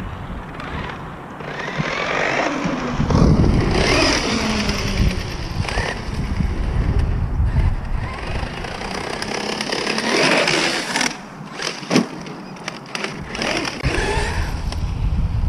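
Wind buffeting the microphone, with an electric motor whine that rises and falls in pitch, and a single sharp knock about twelve seconds in.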